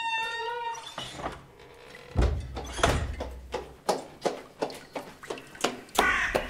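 A brief pitched tone, then a run of sharp knocks and thunks, about two a second, with a low rumble under them for a second or so.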